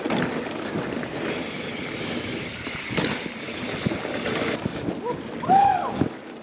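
Mountain bike riding fast down a dirt trail: steady tyre and trail noise with scattered knocks from the bike over bumps. About five and a half seconds in, a short pitched sound rises and falls.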